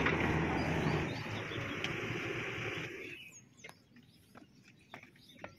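Steady engine noise with a low hum, dying away about three seconds in. After that, birds chirp and there are a few faint sharp clicks.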